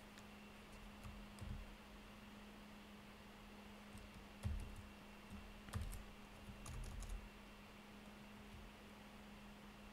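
Faint computer keyboard typing: scattered single keystrokes, with a short run of them about halfway through, over a steady low hum.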